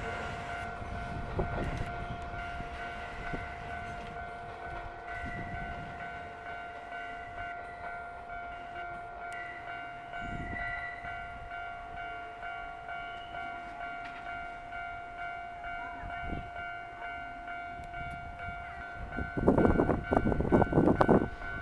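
Railway level-crossing warning bell ringing, its steady electronic tones repeating in a pulsing rhythm. Near the end comes a loud rushing noise lasting about two seconds.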